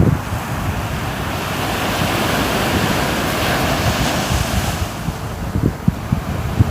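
Sea waves washing ashore: a wave surges up over a couple of seconds and recedes near the end, with wind gusting on the microphone in low rumbles.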